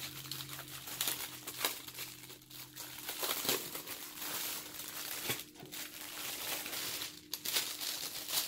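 Plastic wrapping crinkling and crackling as hands struggle to pull it off a bundle of bagged diamond-painting drills, with many sharp crackles throughout.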